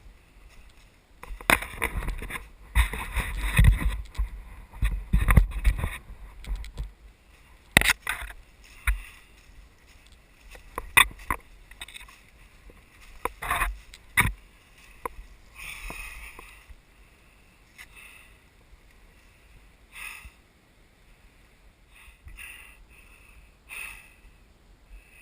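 Footsteps crunching and brushing through leaf litter and undergrowth, an irregular run of rustles and snaps that is thickest and loudest in the first several seconds, then thins to scattered steps and twig snaps.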